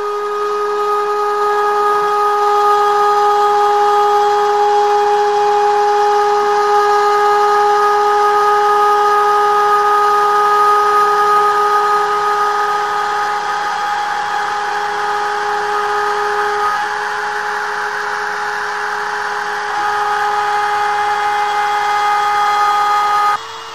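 Hobby-class CNC router milling MDF: a steady high whine from the spindle over the hiss of the bit cutting. The whine fades for a few seconds while the cutting noise carries on, and the whole sound drops suddenly just before the end.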